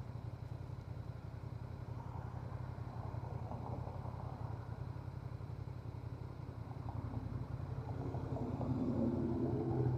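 Honda Transalp 750's parallel-twin engine running steadily under way with a low, even exhaust note. It grows somewhat louder near the end.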